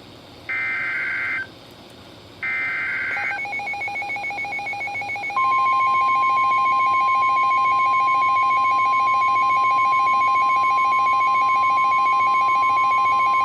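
NOAA Weather Radio emergency alert: the last two of three short, buzzy SAME digital header bursts, then a Gentex Commander 5 alarm horn triggered by the radio starts a rapid pulsing tone. About two seconds later the steady 1050 Hz weather radio warning alert tone joins it, signalling that a warning follows.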